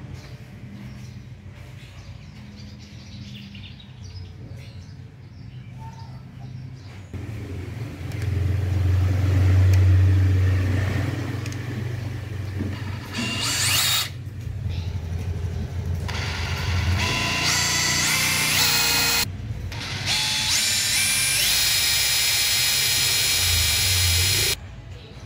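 DeWalt DCH172 20V brushless SDS-plus rotary hammer run with no load, the motor whining up through its speeds as the trigger is squeezed harder. It stops suddenly near the end.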